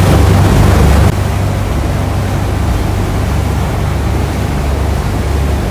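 Tour boat's engine running with a steady low rumble under a rush of wind and water noise. The level drops suddenly about a second in.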